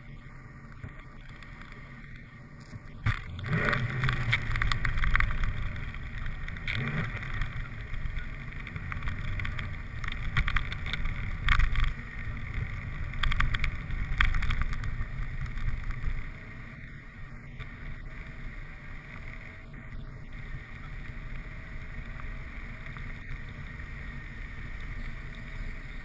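A car driving, heard through a camera mounted on its hood: a steady low rumble of road and engine with wind buffeting the microphone. It grows louder, with frequent crackles, from about 3 s in until about 16 s, then settles back to a quieter rumble.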